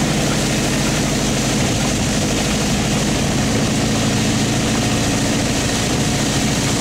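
Car engine powering a vỏ lãi long-tail boat running steadily at high speed, with the rush of water spraying off the hull.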